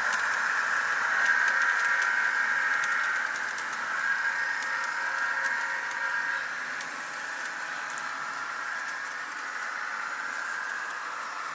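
Model Budd RDC railcar's DCC sound decoder playing its diesel engine sound through a small speaker as the car runs on the track. The sound is louder for about the first six seconds, then drops off somewhat.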